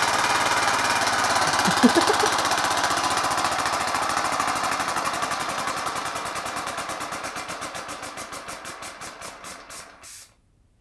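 3D-printed single-piston compressed-air engine with a cam-operated valve, running on a pressurised plastic bottle and spinning a propeller: a fast, even chugging of air puffs. The puffs gradually slow and fade as the bottle's pressure runs down, and stop about ten seconds in.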